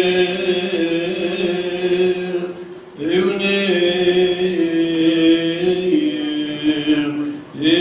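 Unaccompanied liturgical chant: a voice holds long, drawn-out notes that step to new pitches, pausing for breath about three seconds in and again near the end.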